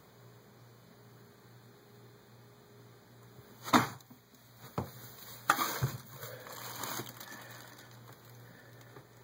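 Low steady hum, then a sharp knock a little under halfway through followed by a few seconds of scraping and tapping: a yardstick prodding against the stone floor and wall of a basement.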